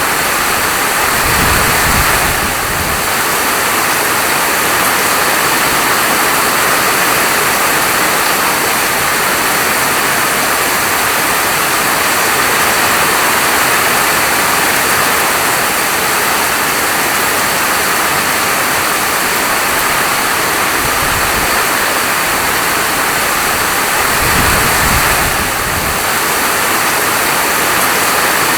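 Steady rain falling, an even hiss of drops, with a brief low rumble a few times, about a second or two in, near the middle and near the end.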